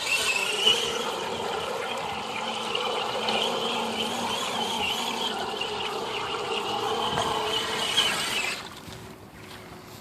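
Electric motor and gear drivetrain of an HPI Crawler King RC crawler whining as it drives through creek water, with water splashing; the whine wavers in pitch under load and cuts off about eight and a half seconds in.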